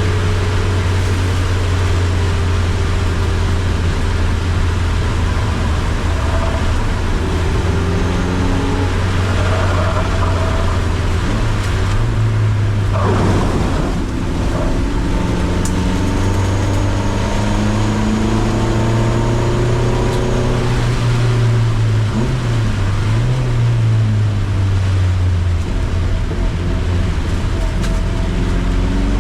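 Car engine driven hard on a race circuit, its pitch rising and falling again and again as it accelerates, shifts and slows for corners. Underneath is a steady hiss of heavy rain and tyre spray on the wet track.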